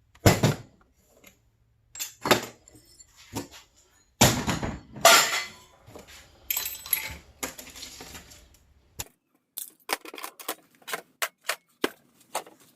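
Hard objects, scrap metal and junk, knocking and clattering as they are handled: a few sharp knocks, a long loud rattling clatter in the middle, then a string of separate quick clicks near the end.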